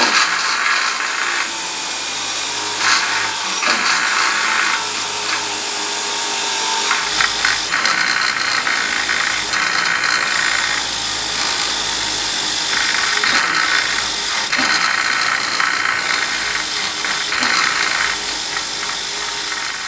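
Bench grinder's wire wheel scouring rust and scale off an antique steel axe head: a continuous scratchy rasp over the motor's steady hum, swelling and easing in turns as the head is pressed against the wheel and shifted.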